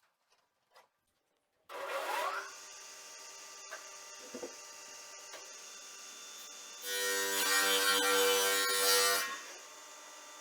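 A woodworking machine starts suddenly a little under two seconds in and runs with a steady hum. From about seven to nine seconds it grows much louder as timber is cut through it, then drops back to running free.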